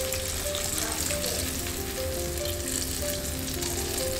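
Battered haddock deep-frying in oil at about 350 °F, a steady sizzle throughout, with a background music melody.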